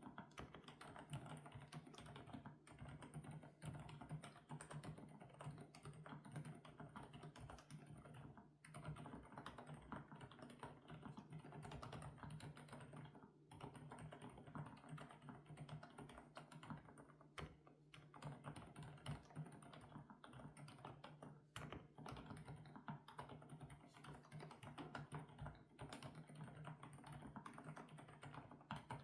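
FL-Esports OG98 mechanical keyboard with Kailh Coconut Latte switches being typed on fast and continuously, a dense run of key clacks broken by a few brief pauses.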